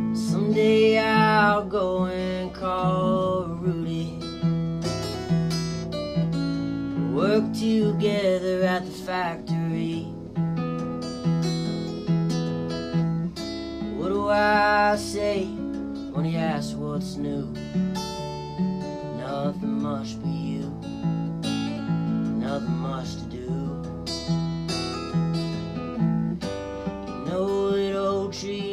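Steel-string acoustic guitar strummed in a steady rhythm under a man's solo singing voice, which comes in long sung phrases with gaps between them.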